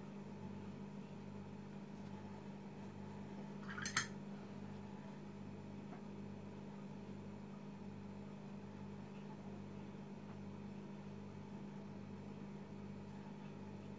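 Faint steady low hum with a slow, regular pulsing about once a second, and a single short clink about four seconds in.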